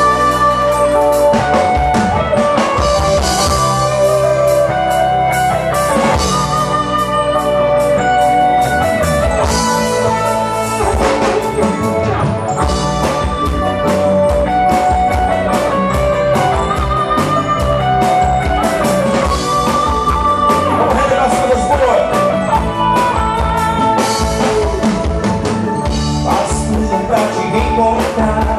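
Live band playing an instrumental passage: a lead melody of held, bending notes over electric guitar, drum kit and hand drums, with steady bass.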